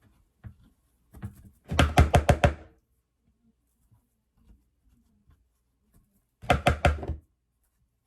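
Two quick runs of sharp knocks, about half a dozen strikes each, one about two seconds in and another near seven seconds: a utensil rapped repeatedly against a dish while scooping out baked potato flesh, with a few faint clicks between.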